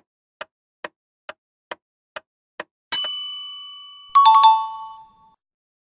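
Quiz countdown-timer sound effect: a clock-like ticking at about two ticks a second, then a bright bell ding about three seconds in that rings out as time runs out, followed a second later by a quick run of three chime strikes.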